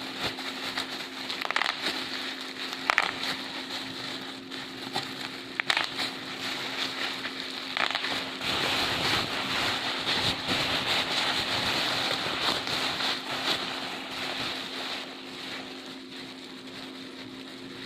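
Bubble wrap: a few separate sharp pops spaced a second or two apart, then from about eight seconds in a long stretch of dense crackling that fades off near the end. A steady low hum runs underneath.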